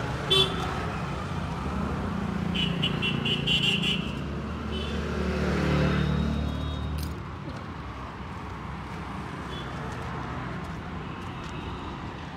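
A motor vehicle's engine running close by on the street, swelling to its loudest about six seconds in and then falling away, with a sharp click near the start and a few short high metallic jingles a little later.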